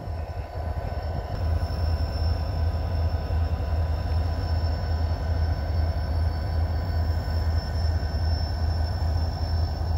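EMD diesel locomotives running in a rail yard: a steady low rumble.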